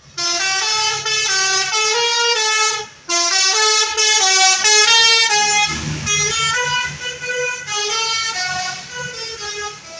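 Basuri 'telolet' multi-tone air horn on a bus playing a quick tune of short notes that step up and down, with a brief break about three seconds in. A low rumble joins under it around the middle.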